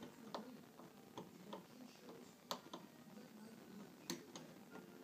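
Faint, irregular light clicks and taps of a hand tool working on door knob hardware, the sharpest about four seconds in.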